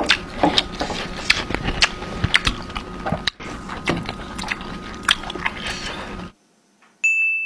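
Loud, close chewing and crunching of mouthfuls of food, a dense run of wet smacks and sharp clicks, offered as the sound of a cow chewing straw. It stops about six seconds in, and a high electronic beep starts just before the end.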